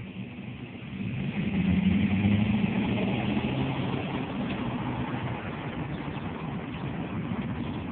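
Car engine rising as the car pulls away from a stop about a second in, then running steadily with road noise, heard from inside the car.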